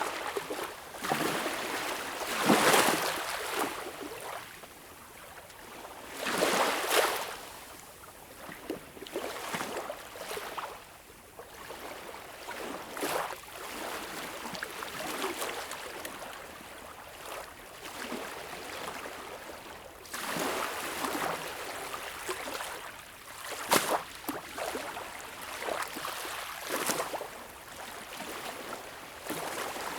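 Gentle waves lapping and breaking on a beach shore, each surge of hiss swelling and fading every few seconds. The strongest surges come near the start, about seven seconds in, and two-thirds of the way through.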